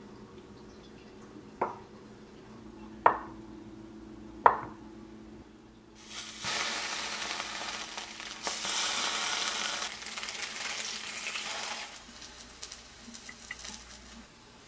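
A chef's knife cutting through a block of tofu and striking a wooden cutting board three times, about a second and a half apart. Then tofu slices sizzling in hot oil in a frying pan for about six seconds, fading to a softer sizzle near the end.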